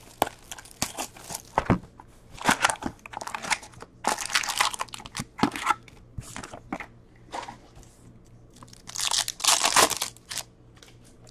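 Foil hockey card packs and a cardboard box being handled, the wrappers crinkling and rustling in irregular bursts, with a longer, louder tearing-crinkling burst about nine seconds in as a pack is ripped open.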